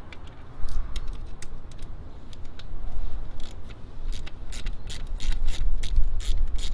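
Hand ratchet clicking as it backs out the T30 Torx bolts holding the ignition cassette: a few scattered clicks, then a quick run of about four to five clicks a second over the last few seconds. Wind rumbles on the microphone underneath.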